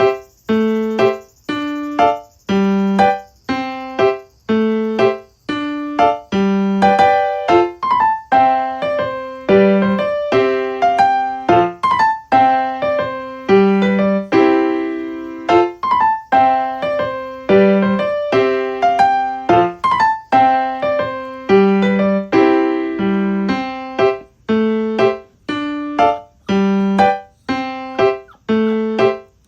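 Background music: a gentle piano tune played as separate notes with a steady beat.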